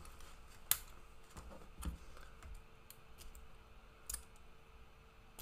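Small brass padlock worked with a 3D-printed plastic key: a few faint, sharp clicks as the shackle is pressed shut and the key turns it open again. The loudest click comes under a second in, with others near two and four seconds in.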